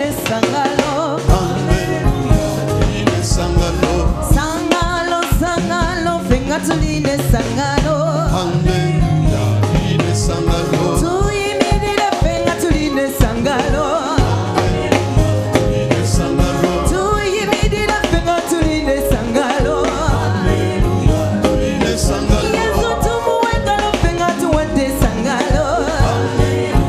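Women's church choir singing in unison and harmony through microphones and a sound system, over a band with a steady drum beat.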